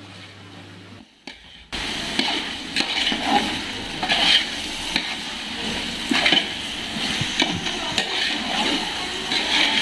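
A metal spatula stirring and scraping onions, green chillies and freshly added tomatoes as they fry and sizzle in oil in a large metal pot, while the tomato masala is being sautéed. After a brief quiet gap about a second in, the scrapes come roughly once a second over the steady frying.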